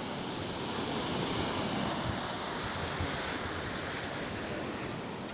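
Sea surf washing onto the beach in a steady wash, with wind buffeting the microphone.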